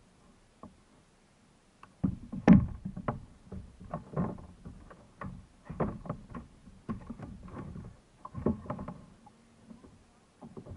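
Irregular knocks and thumps on a plastic fishing kayak as a freshly caught fish and gear are handled on board, starting about two seconds in, the loudest a moment after they begin.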